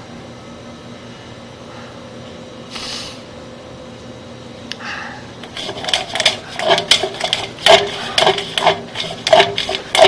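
A steady low hum. From about halfway in, a quick, irregular run of sharp clattering knocks and rattles, like hard equipment being handled.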